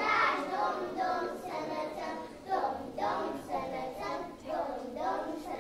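A group of young children singing together in unison, without clear instrumental backing.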